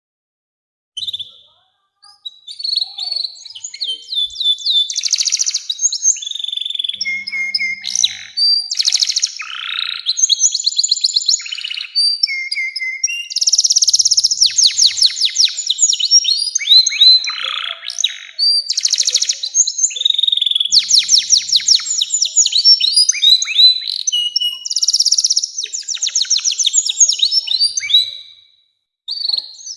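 Domestic canary singing a long, varied song of rapid trills, rolls and chirps, starting about a second in and breaking off briefly near the end.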